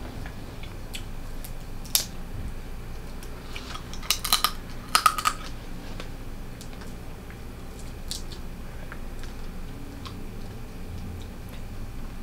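Blue crab shell being cracked and picked apart by hand: scattered sharp clicks and cracks, with a quick cluster of louder snaps about four to five seconds in.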